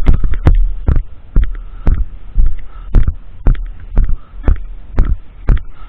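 Footsteps of a person walking on the ground, each step a dull thump about twice a second, picked up by a camera worn on the body.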